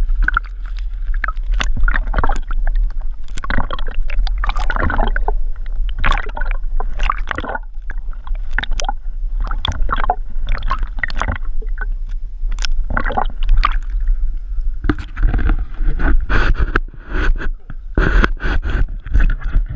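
Lake water splashing and gurgling irregularly around an action camera held at and just under the surface, over a steady low rumble of wind.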